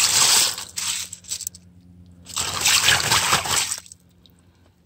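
Wet gravel and pebbles raked by hand across a mesh sifting screen, rattling and scraping with water trickling through. The sound comes in two bursts, the second starting about two and a half seconds in.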